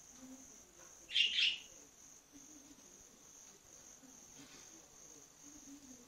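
A budgerigar gives one short, loud chirp about a second in, in two quick parts.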